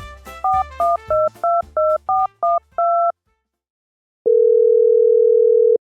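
Telephone keypad tones: about nine quick two-note beeps as a number is dialed, over the tail of soft music. After a short pause comes one long, steady ringing tone as the call goes through.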